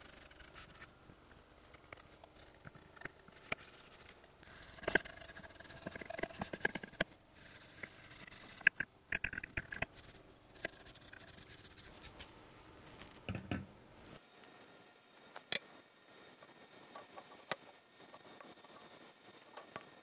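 A gloved hand with a rag wiping finish onto a wooden board, making quiet, uneven rubbing and scraping. A few sharp clicks and a light knock come now and then.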